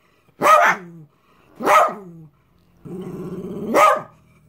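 Three short barks about a second apart, the last one led in by a low steady growl.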